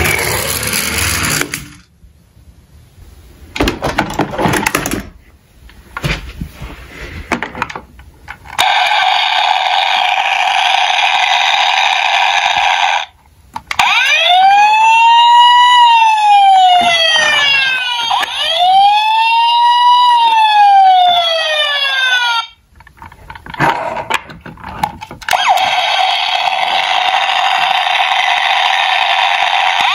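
Battery-powered toy emergency vehicle sirens being sounded. After a stretch of plastic clatter and clicks, a steady buzzy electronic tone plays, then a wail siren sweeps up and falls twice. More clicks follow, and then the buzzy tone plays again.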